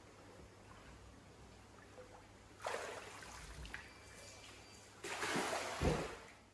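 Water splashing and running off as a large koi is lifted out of a plastic tub. About five seconds in comes a louder splash with a heavy thump as the fish goes back into the pond and churns the water.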